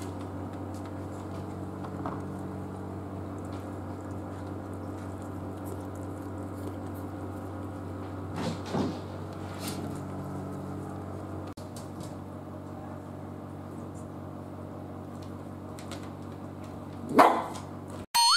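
Miniature dachshund whining in short pitch-gliding cries, a couple of times midway and once louder near the end, over a steady low hum.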